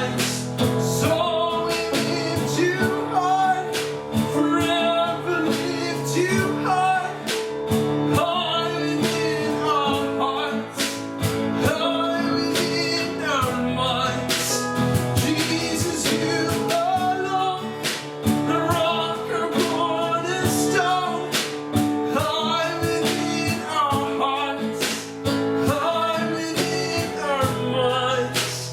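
Contemporary worship song: singing over strummed acoustic guitar and a steady band accompaniment.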